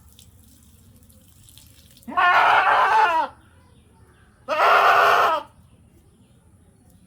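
A goat bleating twice: two loud, wavering calls of about a second each, the first falling in pitch at its end.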